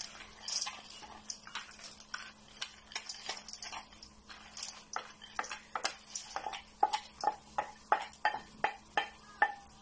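A metal spoon clinking against cookware as raw peanuts are spooned into hot oil: scattered clicks at first, then a steady run of about three clinks a second from about halfway through.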